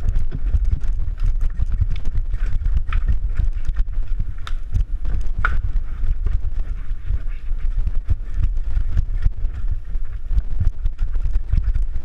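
Downhill mountain bike rattling and clattering over rocks and roots at speed, rapid knocks from the wheels, chain and frame, with a heavy wind rumble on the action camera's microphone.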